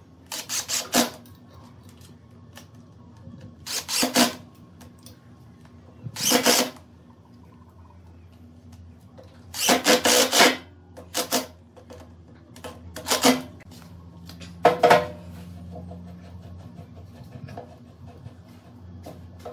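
Cordless drill-driver running screws through a metal lathe faceplate into a block of wood, in seven short bursts a few seconds apart.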